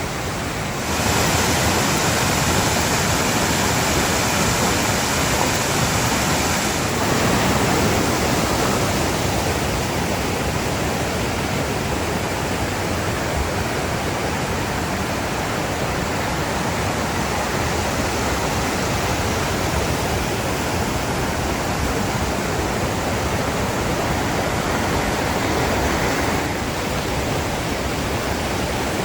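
A waterfall, Huron Falls, rushing steadily. Its level steps up slightly about a second in and shifts a little a couple of times later.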